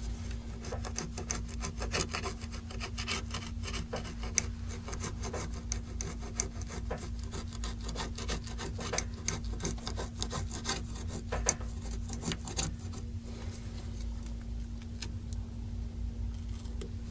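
A pick scraping old adhesive and bits of broken glass off a Samsung Galaxy S3's frame: quick, dense scratching and clicking strokes that thin out after about thirteen seconds. A steady low hum underneath.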